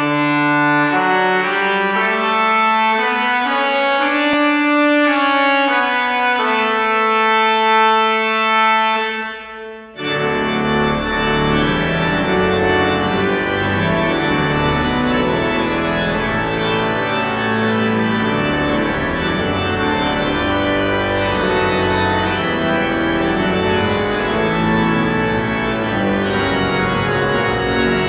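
Church organ music. Slow held chords fade out about ten seconds in, then a fuller passage with many moving notes begins.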